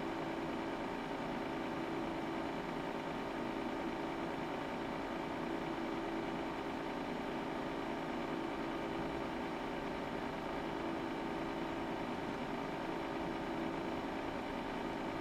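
Steady hum of the cooling fans in the bench test equipment: an even whirring noise with a low held tone and a fainter higher one, unchanging throughout.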